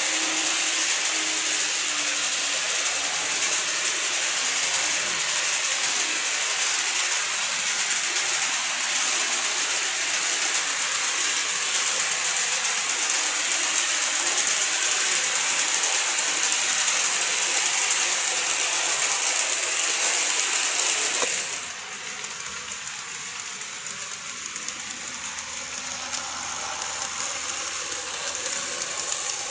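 Model trains running on model track: the steady rolling and rattling of small metal wheels over rail joints with a high hiss of motor and mechanism, from an EH200 electric locomotive model hauling Taki 1000 tank wagons and a 115 series electric train model. About three quarters through, the sound drops suddenly to a quieter running noise with less hiss.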